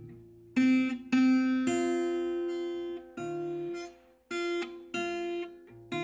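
Background music on acoustic guitar: chords struck roughly once a second, each ringing and fading, with a short lull near the start.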